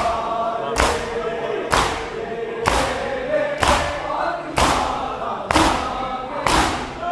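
A large crowd of bare-chested men doing matam, striking their chests in unison about once a second, under a noha chanted by many male voices.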